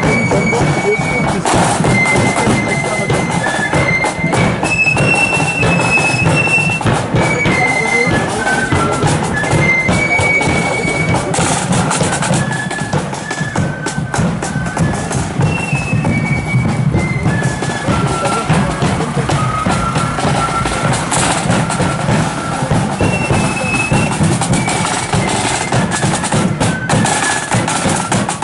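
Marching flute band playing: a high, stepping flute melody over side drums and a bass drum beating steadily.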